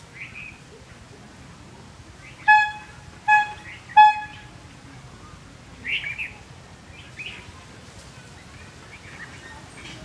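Three short, flat horn toots in quick succession, a little under a second apart, the loudest sounds here. Birds chirp around them, with short chirps just after the start and again about six and seven seconds in.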